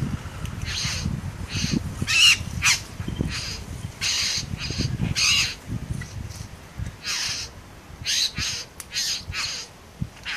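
Male satin bowerbird giving a string of short, harsh, rasping calls during his courtship display at the bower, irregularly spaced with a brief pause about six seconds in.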